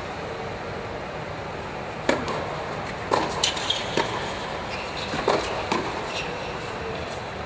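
Tennis serve: the racket strikes the ball sharply about two seconds in, followed by a short rally of further ball hits and bounces with a few shoe squeaks on the hard court, over a steady background hum.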